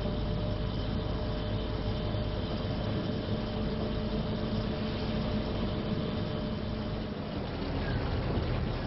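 Steady low drone of running machinery, with a few faint held tones over the rumble.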